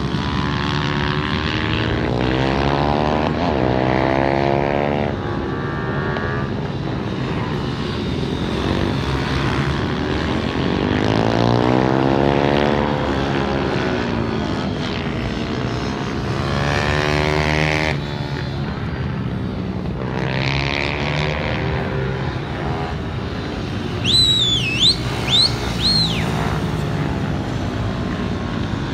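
Several pit bike engines racing round a circuit, their pitch rising and falling as the bikes accelerate, change gear and pass. About 24 seconds in, a few short, high whistling notes that dip in pitch are the loudest sound.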